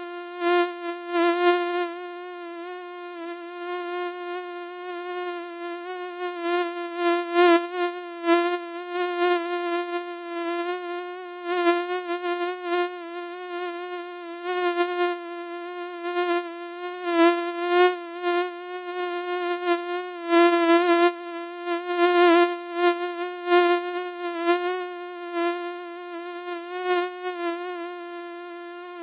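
Mosquito in flight: a steady wingbeat whine at one pitch with many overtones, swelling louder and softer irregularly with frequent brief louder peaks.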